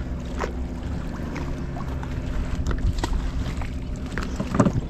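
A small fishing boat's engine running steadily, with wind on the microphone. Short knocks and scrapes from hand-hauling the fishing line come through it, and a louder cluster of knocks and splashes sounds near the end as the line is pulled in at the boat's side.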